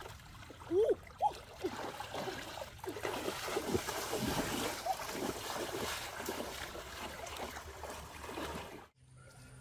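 Water splashing and sloshing as a person wades through a shallow river and plunges her hands in to grab at fish. A few short rising squeaks stand out about a second in, and the sound cuts off near the end.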